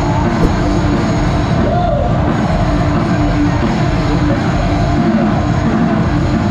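Loud live rock music from a concert stage, a band playing with singing over it.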